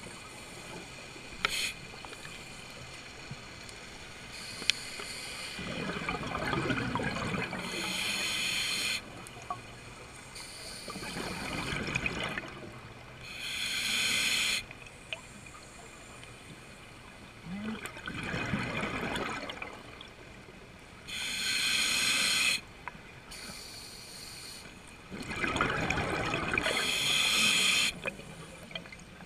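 Scuba regulator breathing heard underwater: four breaths about seven seconds apart, each a gurgling rush of exhaled bubbles and a sharp hiss of the regulator delivering air on the inhalation.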